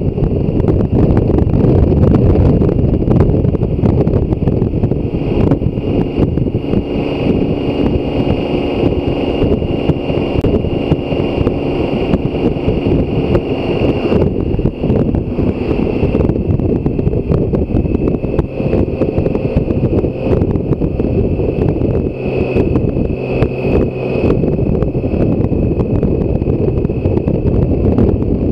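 Wind rushing over the microphone of a BMW K1600 GTL touring motorcycle cruising on the open road, with a steady engine hum and a faint high whine under the wind.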